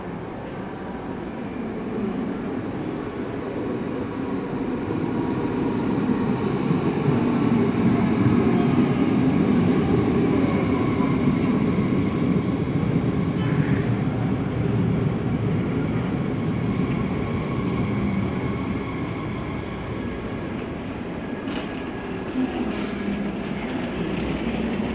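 A train running in a station, its rumble building over several seconds to a peak about a third of the way in, then slowly easing, with faint steady whining tones over it and a few sharp clicks near the end.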